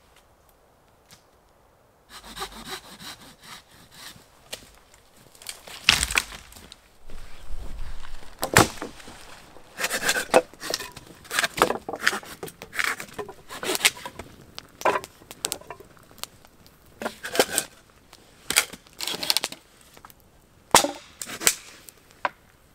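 Deadwood being cut by hand with a blade: a run of short rasping strokes, about one a second at times, starting about two seconds in, with a few sharper cracks of wood among them.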